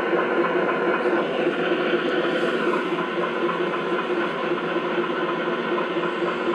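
Engine sound from the sound module of a scale RC Land Rover Defender 110, played through its small onboard speaker and running steadily at idle.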